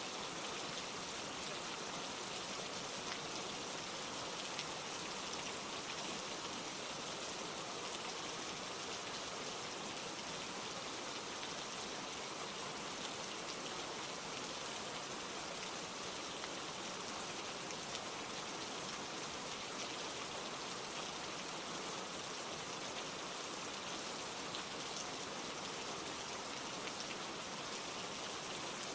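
Steady rain falling, an even hiss with fine patter of drops, unchanging throughout.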